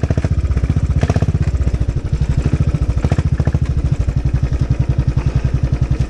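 Royal Enfield Classic 500's single-cylinder four-stroke engine running at low revs, a steady, evenly spaced beat of exhaust pulses, as the bike is ridden slowly.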